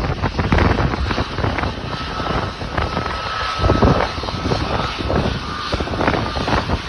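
Jet airliner taxiing, its engines a thin steady whine and low rumble under heavy, gusting wind buffeting the microphone.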